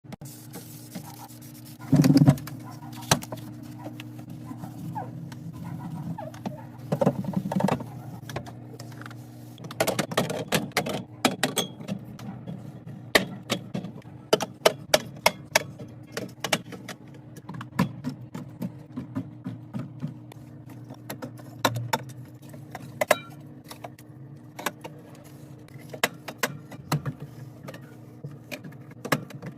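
Repeated clicks, clinks and knocks of packaged items and containers being handled and set into a fridge, over a steady low hum. The loudest is a short clatter about two seconds in.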